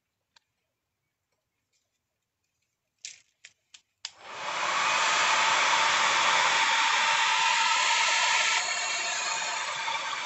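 A few light clicks, then about four seconds in a handheld electric dryer switches on and blows steadily, drying wet ink on watercolour paper. Its sound drops a little for the last couple of seconds.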